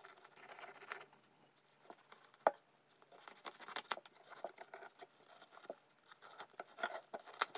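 Knife cutting a fillet from a raw whole fish, with scattered small clicks and crackles as the blade works through the flesh and along the bones, and one sharper click about two and a half seconds in.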